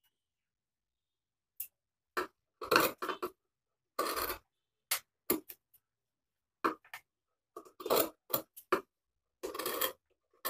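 Tailoring scissors cutting through denim in short separate snips, with the cut denim pieces shifted and rubbed on the tabletop between cuts.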